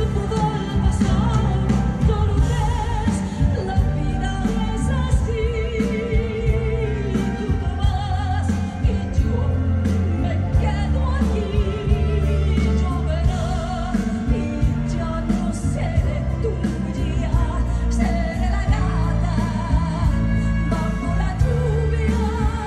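Woman singing a Spanish-language ballad live with a band. Her held notes waver with a wide vibrato over a steady bass line.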